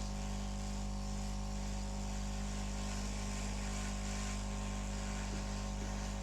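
Hot air rework station running steadily at a low airflow setting: an even blowing hiss over a constant electrical hum.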